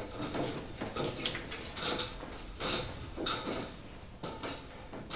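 Irregular footsteps with light knocks and rustles, a few tenths of a second to about a second apart.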